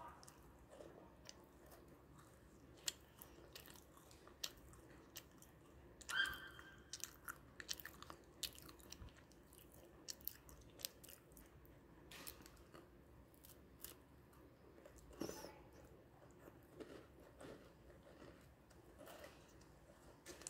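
A person biting into a hard, crisp gingerbread cookie, with a sharp snap about six seconds in, then crunching and chewing it. The crunches come thick at first and thin out later.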